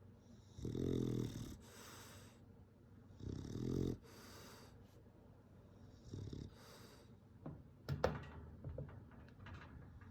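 Bulldog snoring in its sleep: three slow breaths, each a rattling low snore followed by an airy hiss, the first two loudest. Near the end come a short snort and some snuffling.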